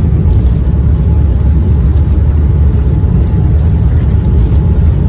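Steady low rumble of an airliner's engines and airflow heard inside the passenger cabin, with no change in pitch or level.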